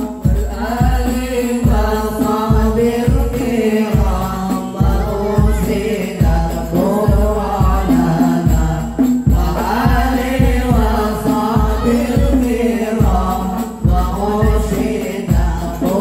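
Hadroh music: voices singing an Islamic sholawat together through a microphone and loudspeakers, over a steady beat of rebana frame drums with deep bass hits.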